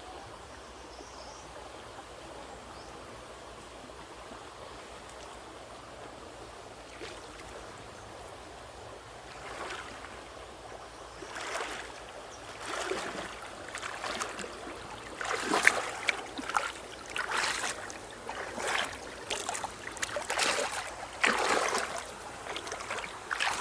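River water flowing steadily; from about ten seconds in, a run of irregular, louder splashes as the water is disturbed.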